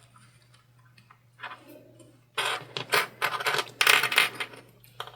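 Handling noise from the bag's fabric and zipper pieces being moved: a run of light clicks and rustles starting about two and a half seconds in, after a near-silent start.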